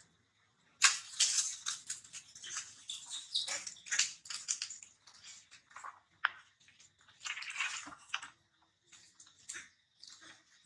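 Dry leaf litter crackling and rustling as a young macaque forages through it: a string of sharp crackles and short rustles starting about a second in, with a longer rustle near the middle.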